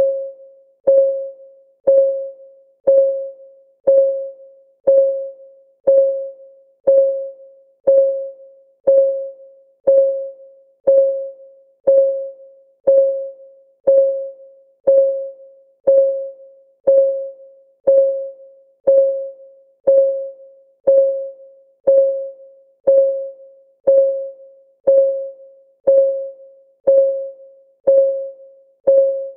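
Countdown timer's clock-ticking sound effect: short, even, slightly pitched ticks, about two a second, at a steady pace.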